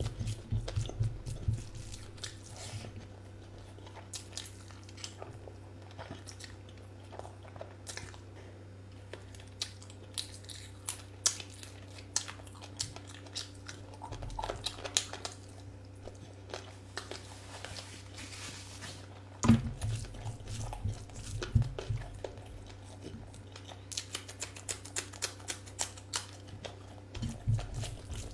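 Close-up chewing, biting and mouth smacks of a person eating a curry meal, with irregular clicks that come thicker in the last third. A steady low hum runs underneath.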